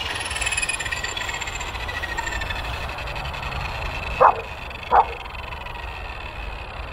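Blade 230S electric RC helicopter on the ground with its rotor spinning down: a high motor and rotor whine that slowly falls in pitch and fades. A little past halfway, two short sharp sounds about a second apart are the loudest thing.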